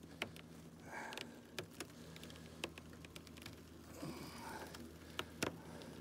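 Boiling water poured from a kettle onto a windshield frozen with liquid nitrogen: a faint splashing hiss that swells about a second in and again about four seconds in, with scattered sharp ticks.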